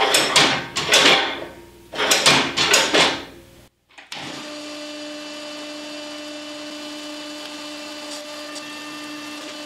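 Homemade hydraulic forging press in operation: two loud surges of hydraulic noise in the first three seconds as the control lever works the valve and drives the ram. After an abrupt break, the press's hydraulic pump runs steadily with a constant whine.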